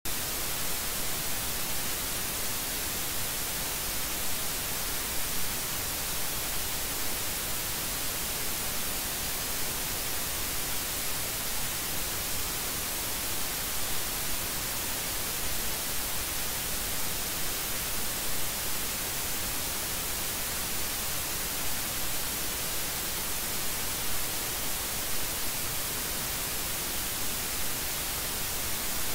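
Steady hiss of recording noise, brighter at the high end, with no other sound over it.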